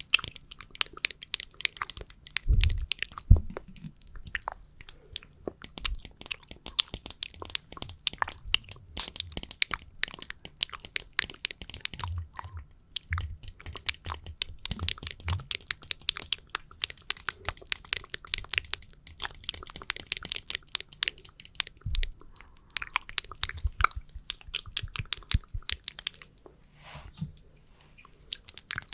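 Close-miked ASMR tapping on a small fan and a standee clip: dense, rapid crisp clicks and scratches, with a few soft deeper thumps.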